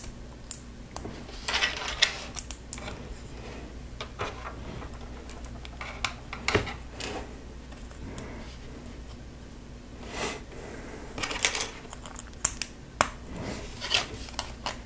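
Plastic LEGO pieces clicking and clattering as they are handled and snapped together, in scattered irregular taps.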